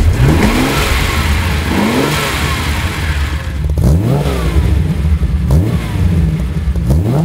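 Ferrari 365 GTB/4 Daytona's 4.4-litre V12 being blipped while the car stands still, about five quick revs that rise and fall back toward idle.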